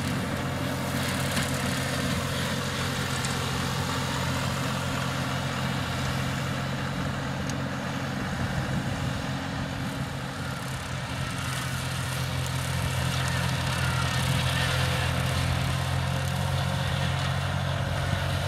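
Ferrari Cobram 65 RS compact tractor's diesel engine running steadily at an even pitch while the tractor pulls a slasher mower through long, previously uncut grass.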